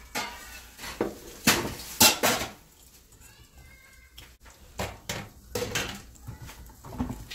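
Fingers mashing and mixing fried garlic in a bowl, knocking and scraping against the bowl, with the sharpest knocks about a second and a half and two seconds in and quieter scrapes after.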